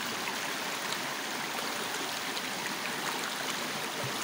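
Shallow rocky forest stream flowing, a steady rush of water over stones.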